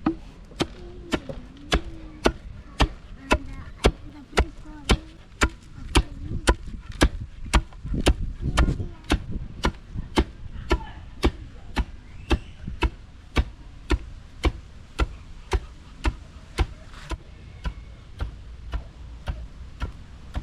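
Steady chopping: a blade striking a hard surface with sharp, regular knocks about twice a second.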